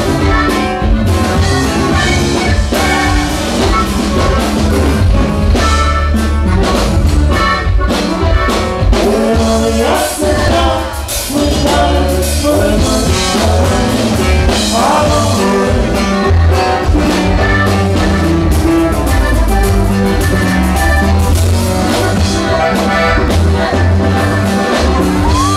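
Live norteño music: a button accordion and a bajo sexto over bass and drum kit, with a man singing.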